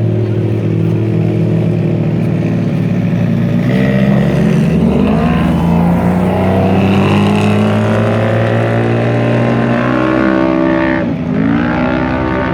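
Polaris RZR 1000 side-by-side's engine running hard under throttle, its revs climbing from about four seconds in, then dropping sharply just before the end and picking straight back up.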